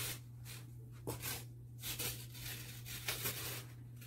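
Blue ribbon rustling and scraping against the cardboard chart as it is pulled through, in several short bursts, over a steady low hum.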